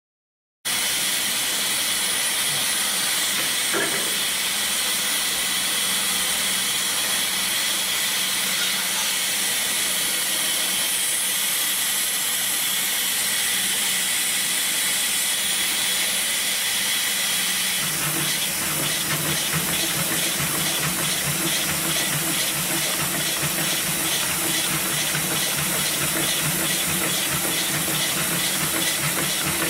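A steady hiss, joined about two-thirds of the way in by the CowBoy CB7243 triple-feed heavy-duty sewing machine stitching a leather strap: a fast, even run of needle strokes with a low hum.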